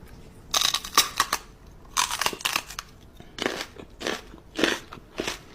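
Something crunchy being chewed: a run of irregular, sharp crunches, one or two each second.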